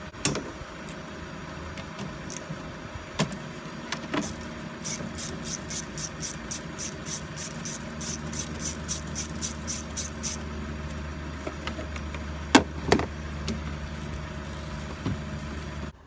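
Ratchet wrench with a long extension and 13 mm socket working the battery clamp bolt, clicking about four times a second for several seconds, with a few knocks from the plastic battery covers before and after. A low steady hum comes in about halfway.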